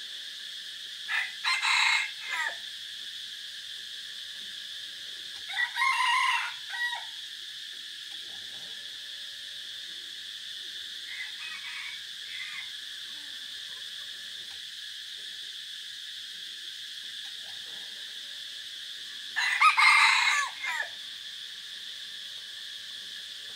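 Caged red junglefowl decoy roosters crowing four times, each crow about a second and a half long. The third crow is faint and the one near the end is the loudest. A steady insect drone runs underneath.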